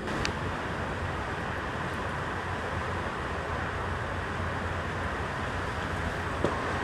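Small screw-on gas canister camping stove lit with a sharp click of its igniter right at the start, then its burner hissing steadily under the pot while a wooden spoon stirs.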